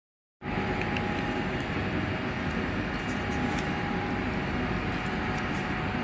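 Steady mechanical background hum with a faint steady whine in it, and a few light clicks as small plastic parts are handled.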